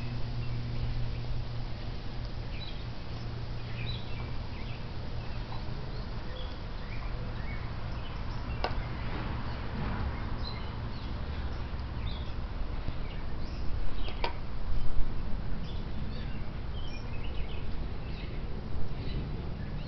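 Small birds chirping here and there over a steady low hum, with a couple of sharp clicks, one near the middle and one about two-thirds of the way through.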